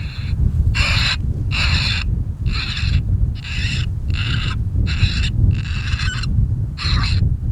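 Predator call sounding a run of repeated coyote-style yelping cries, about one every 0.8 seconds, each cry alike, to lure a coyote in. Steady wind rumble on the microphone underneath.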